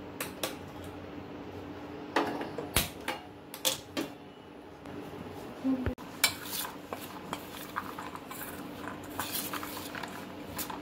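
Steel kitchen utensils clinking and knocking at the stove, a few separate sharp strikes in the first half. After a cut about six seconds in, cornflour-coated boiled chickpeas are tossed by hand in a stainless steel bowl, many light clicks and rustles.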